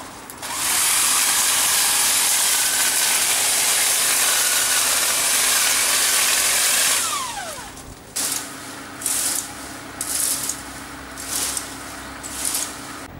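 Electric hedge trimmer running steadily, then winding down with a falling pitch about seven seconds in. After it, a garden rake scrapes over the ground in strokes about once a second, gathering hedge clippings.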